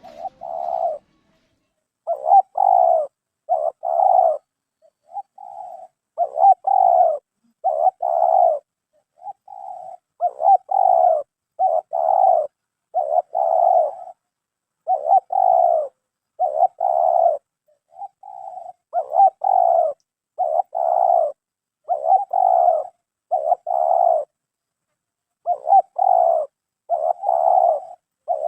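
Spotted dove (terkukur) cooing over and over: short, pitched coos of about half a second each, delivered in phrases of two to four with brief pauses between phrases.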